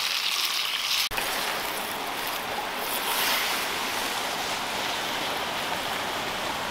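Chicken pieces sizzling in hot oil in a clay cazuela. About a second in, the sizzle breaks off abruptly and the steady rushing of a flowing stream takes over.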